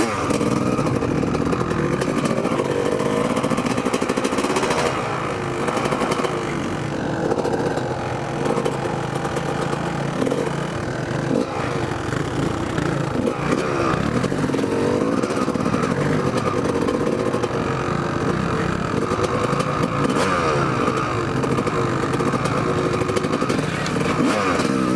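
Kawasaki KX250 dirt bike engine running under way, its pitch rising and falling over and over with the throttle.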